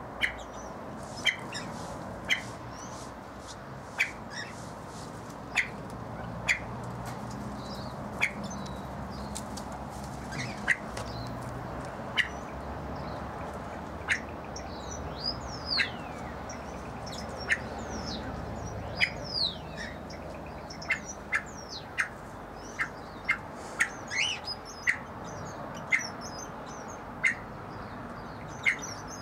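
A Lady Amherst pheasant hen giving short, sharp calls again and again, one every second or two and faster in the last third. Small birds chirp and whistle more faintly in the background.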